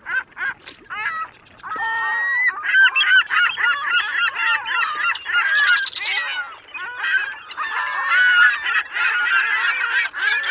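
A flock of birds calling, many short calls overlapping. Sparse at first, a dense chorus from about two seconds in, easing briefly about two-thirds of the way through.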